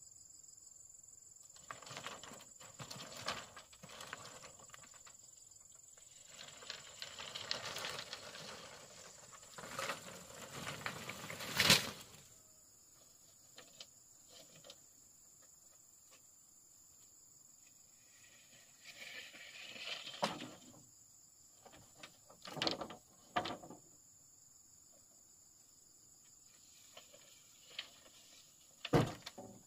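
Irregular rustling and scattered knocks of handwork, the loudest knock about twelve seconds in and another sharp one near the end, over a steady high-pitched insect trill.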